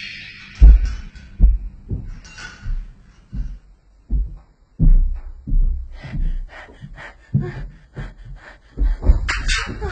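A series of deep, irregular thuds, about two or three a second, with a few sharper knocks near the end.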